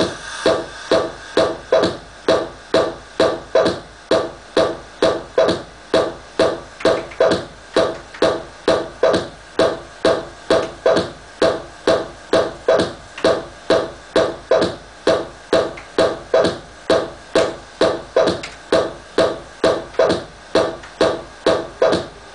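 Progressive house track playing from a Pioneer CDJ 1000 through a DJM 700 mixer: a pulsing synth chord that hits about twice a second and fades after each hit.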